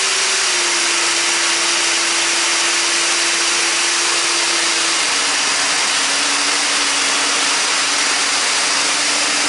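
70 mm 12-blade electric ducted fan running steadily at part throttle, under 30%, with a loud rushing whine. Its pitch steps down slightly about half a second in and again about five seconds in.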